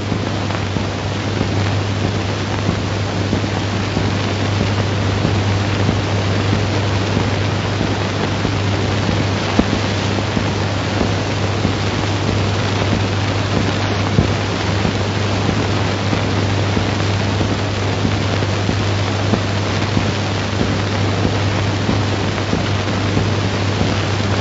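Steady hiss and low hum of a 1930s optical film soundtrack, with no narration or music over it.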